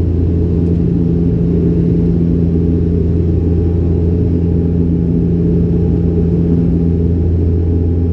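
Cabin drone of a Bombardier Dash 8 Q400's Pratt & Whitney PW150A turboprops and six-bladed propellers during the climb: a loud, steady low hum with one strong tone and its double above it, under a rushing noise.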